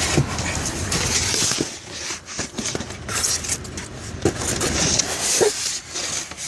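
Packaging being handled: rustling that comes and goes, with scattered clicks and knocks, as the box of new car speakers is picked up and opened.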